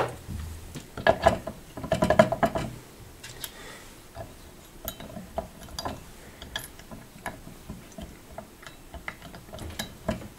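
Small metal tap parts clinking and clattering, loudest from about one to three seconds in, then light clicks and taps as a handle is fitted back onto a two-handle kitchen mixer tap.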